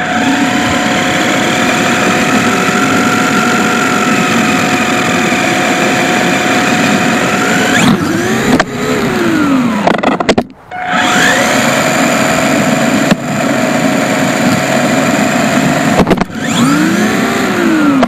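Whine of a WLtoys K989 remote-control car's electric motor and gears running at speed, with tyre and road noise, heard from a camera riding on the car. The sound drops out briefly about ten seconds in, and the pitch swings up and back down twice as the car changes speed.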